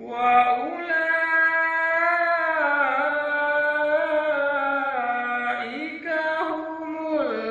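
A man reciting the Qur'an in melodic tajwid style (maqam-based tilawah), singing one long phrase with sustained notes that glide up and down in ornamented turns. The voice starts suddenly after a pause for breath.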